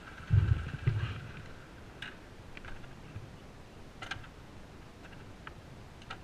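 Dull thumps and knocks about half a second and a second in, then scattered light clicks, as a Bajaj Pulsar motorcycle lies tipped over on its side in mud and the rider handles it.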